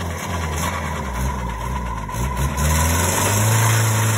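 Off-road 4x4 engines running, with one revving up and getting louder about three seconds in as a bogged vehicle tries to drive out of the mud.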